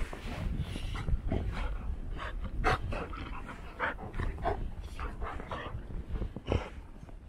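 Two golden retrievers play-wrestling in snow, making short, irregular vocal noises and panting.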